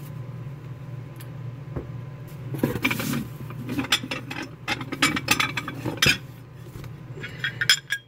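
Hard objects clinking and knocking together in a run of short clatters as items are rummaged out of a box, over a steady low hum.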